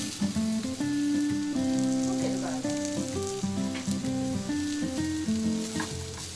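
Turnip wedges sizzling in oil in a frying pan, with a few clicks as metal tongs turn them. Background music with a melody of held notes plays over the frying.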